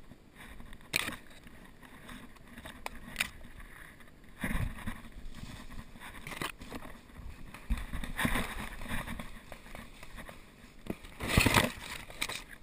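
Footsteps crunching through dry leaf litter and brush rustling against the body-worn camera as a paintball player moves through the woods, with a few sharp clicks and a louder rustle about eleven seconds in.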